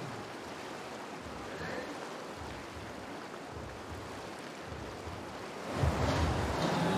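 Steady rushing of whitewater through an artificial slalom channel, with wind buffeting the microphone in uneven low rumbles. About six seconds in, the noise swells sharply louder.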